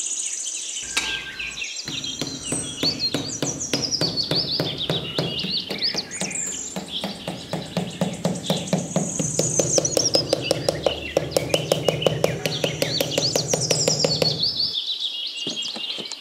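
Birds chirping over a fast, even clicking beat with a low steady tone beneath it; the beat and low tone stop near the end, leaving the chirping.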